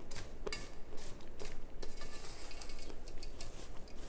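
Chunks of crunchy starch being chewed: a series of sharp, crisp crunches and crackles, with a denser crackling spell in the middle.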